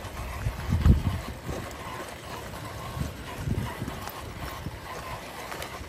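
Wind buffeting the phone's microphone in low rumbling gusts, strongest about a second in and again around three and a half seconds. Under it runs the faint sound of a 1/10-scale RC crawler, a brushless-motor SCX10 build, inching over loose rock.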